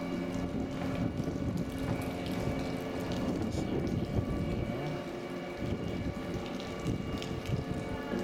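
Steady machinery hum with several fixed tones, over a continuous wash of water and wind noise.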